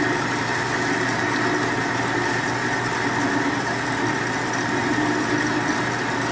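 Metal-cutting bandsaw running steadily as its blade cuts a 45-degree miter through square steel tubing. It stops abruptly near the end.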